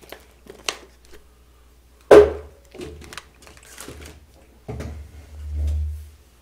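A sharp knock about two seconds in, then rustling and low thudding as a person gets up from a chair at a wooden table and moves away.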